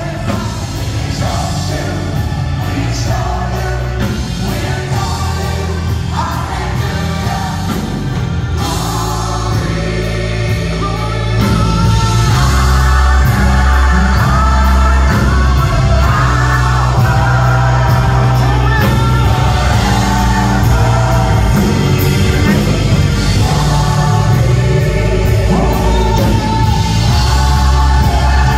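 Gospel choir singing with a live band of drums, bass guitar and keyboards under a heavy bass line. The music gets louder about 11 seconds in and stays full.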